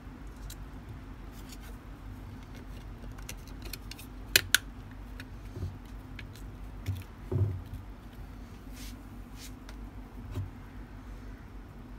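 Small sealed lead-acid battery being handled as its plastic top cover is pressed back on: two sharp plastic clicks about four and a half seconds in, then a few dull knocks against the table. A low steady hum runs underneath.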